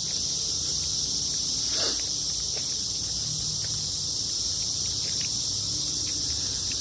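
Chorus of periodical cicadas: a continuous high-pitched buzz that holds steady throughout. A soft knock about two seconds in.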